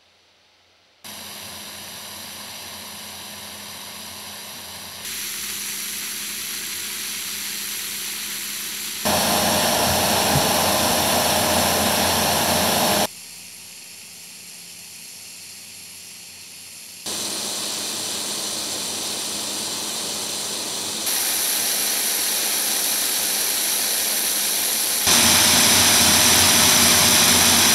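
Snowmaking guns blasting a steady, loud rushing hiss of compressed air and water spray. Starting about a second in, it comes in sections of roughly four seconds, each at a different level, quietest around the middle and loudest near the end.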